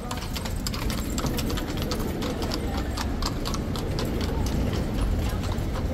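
Horse hooves clip-clopping, a quick irregular run of sharp clicks over a low steady rumble, as from a horse-drawn carriage passing.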